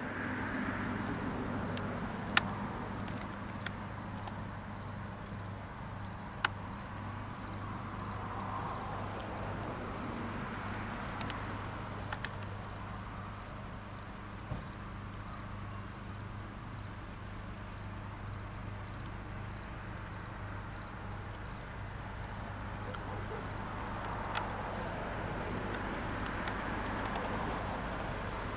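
Outdoor ambience of insects chirring steadily, over a low steady hum, with a few sharp clicks.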